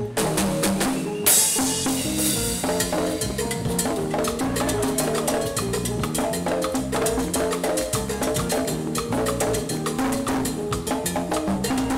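Live Afro-jazz band playing, with a drum kit keeping a busy rhythm over pitched bass and melody lines; a cymbal crash comes about a second in.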